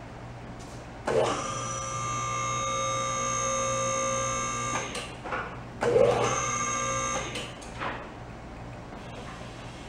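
Electric hydraulic power unit of a four-post car lift running in two spells: the pump motor hums steadily for nearly four seconds, stops, then runs again for about a second and a half. A few short knocks come around the stops.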